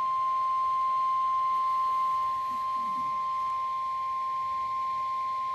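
NOAA Weather Radio's 1050 Hz warning alarm tone sounding from a weather radio receiver: one steady, unbroken beep. It is the attention signal that heralds a warning broadcast, here a tornado warning.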